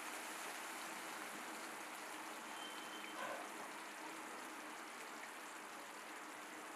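Thick chicken gravy simmering in a steel kadai on the stove: a steady, soft bubbling and sizzling, with one brief sharper pop about three seconds in.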